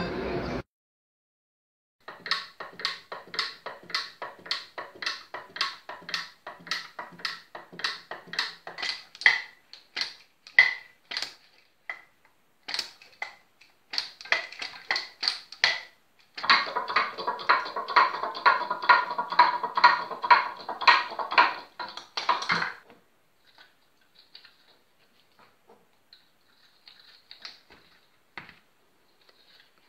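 Moving wooden toys clacking and ticking: a run of sharp wooden clicks at about three a second, growing into a dense rattle for several seconds, then thinning to faint scattered ticks near the end.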